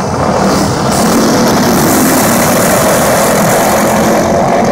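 A pack of dirt-track racing karts with small single-cylinder flathead engines running hard as they pass close by. The engines blend into one loud, steady engine noise that swells about a second in.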